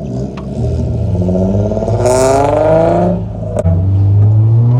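Car engine accelerating hard, its revs climbing steadily, then a click and a drop in pitch about three and a half seconds in as it shifts up a gear, before the revs climb again.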